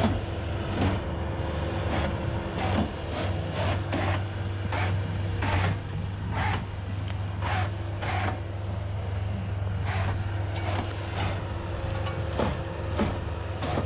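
Bobcat S185 skid-steer's diesel engine running steadily with a bale shredder, with sharp knocks recurring about once a second.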